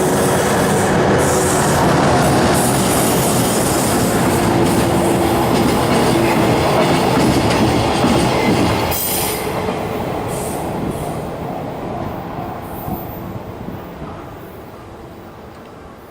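Freight train running past at a level crossing, its steel wheels rumbling and clattering on the rails. The noise is loud for about nine seconds, then fades away as the train moves off.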